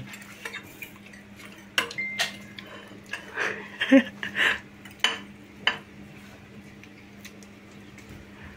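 Metal forks clinking and scraping against ceramic plates as several people eat noodles, in scattered short clicks that are thickest about two to five seconds in and then thin out. A steady low hum runs underneath.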